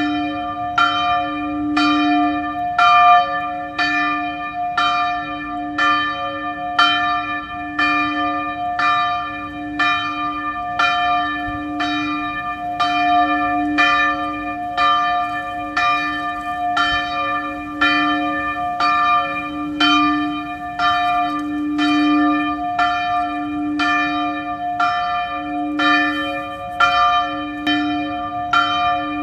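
Church bell tolling, struck about once a second, each stroke ringing on into the next.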